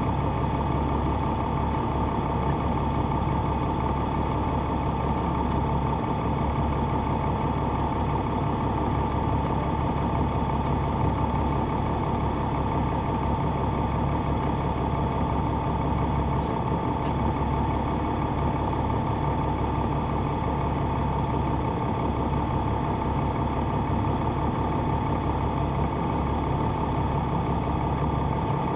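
Caterpillar C9 ACERT diesel engine of a 2004 Neoplan AN459 articulated bus running steadily, heard on board from the rear seats, with a steady high whine over the engine sound.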